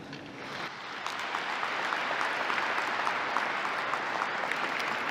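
Audience applauding, the clapping building up about half a second in and then holding steady.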